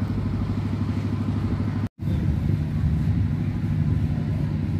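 An engine running steadily with a low, even pulse. It cuts out for an instant just under two seconds in, then carries on.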